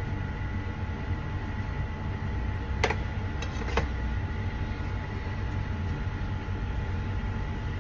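Steady low mechanical hum with a few faint steady whining tones, and two short sharp clicks about a second apart around three seconds in.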